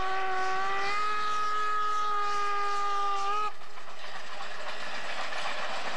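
Narrow-gauge steam locomotive's whistle blowing one long blast of about three and a half seconds, its pitch stepping up slightly about a second in before it cuts off. After it, the steady running noise of the train.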